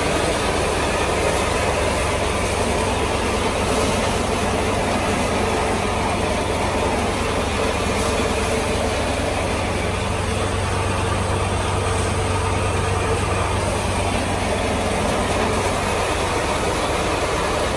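A tractor-driven thresher running steadily, its drum, V-belts and pulleys turned from the Mahindra 475 DI tractor's diesel engine through the PTO shaft. The mix is an even mechanical din over a steady low hum.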